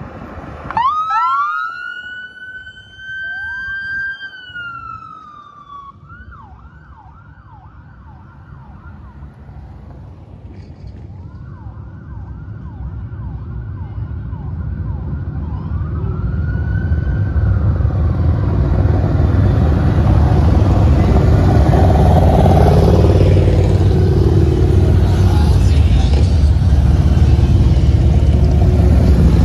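Emergency-vehicle siren from the lead escort vehicle: a wail that rises, holds and falls, then a rapid yelp and a last short wail. After that a long line of motorcycles builds to a loud, steady engine rumble as they pass, the loudest sound in the last third.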